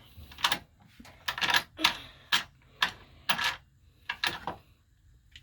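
A series of about eight to ten irregular sharp clacks and knocks, typical of hands working the drill press and its clamps and workpiece, over a faint low hum.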